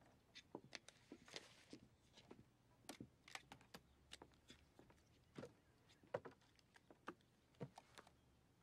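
Faint, irregular clicks and taps of footsteps on a wooden floor against near silence.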